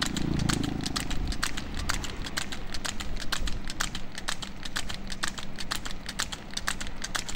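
Water buffalo's hooves striking an asphalt road as it trots pulling a cart: a steady patter of sharp clicks, about four or five a second, with a brief low rumble in the first second.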